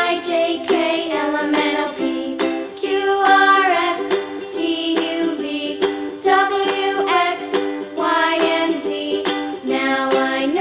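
Background music: a melody over a plucked-string accompaniment with regular note onsets.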